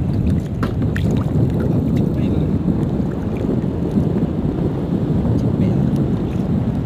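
Steady low rumble of wind buffeting the microphone outdoors, with a few light clicks in the first second.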